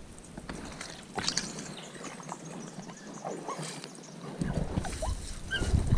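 Dog whining in short, high whimpers, with scattered knocks and a low rumble of movement against the boat.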